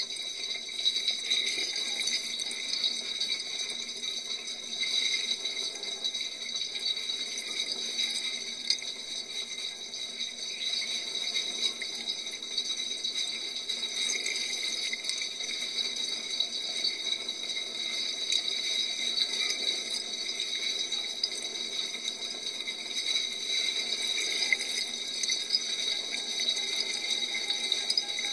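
Dishwasher running its wash cycle: a steady hiss of water spraying against the dishes and tub.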